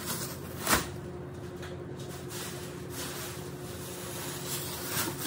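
Plastic grocery bags of vegetables being handled on a stone kitchen counter: one sharp knock about a second in, then a few faint rustles over a steady low hum.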